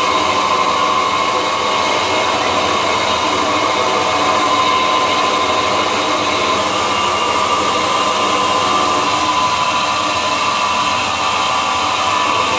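CNC special-purpose machine (combined turning, milling, drilling and tapping) running, a steady mechanical noise with a constant high whine.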